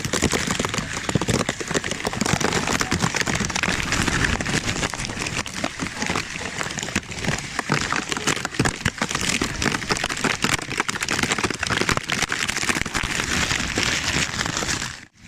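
Heavy rain falling steadily, a dense patter of countless drops striking the ground and surfaces.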